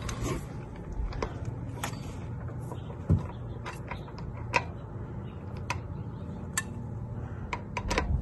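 Scattered metallic clicks and knocks of a socket, lug-nut-lock adapter and breaker bar being fitted onto a car's locking lug nut, over a low steady hum.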